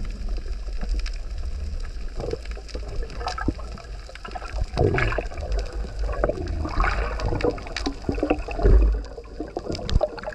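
Underwater sound picked up by a submerged camera: a steady low rumble of moving water with irregular gurgles and scattered sharp clicks.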